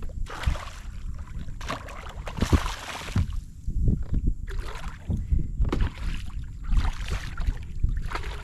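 Water splashing around a kayak in repeated short surges, roughly one a second, over a steady low rumble.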